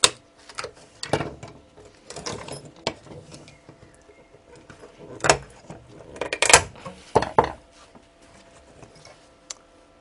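A metal tool prying and scraping at glued-on power transistors on a circuit board: irregular clicks, scrapes and knocks of metal against components and board, loudest a little past halfway.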